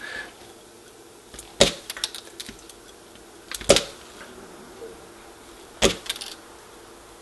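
Diagonal wire cutters stripping the insulation off the 22-gauge conductors of NuTone IW3 intercom cable, one wire after another. There are three sharp snaps about two seconds apart, with a few faint clicks of handling around them.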